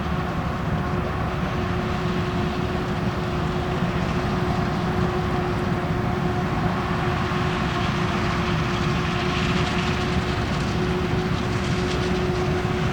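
Heavy diesel farm machinery running steadily under load, with a steady whine over the engine rumble.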